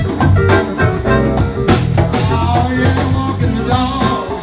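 Live blues band playing: harmonica (blues harp) wailing over electric guitar, with a djembe hand drum and drum kit keeping a steady beat.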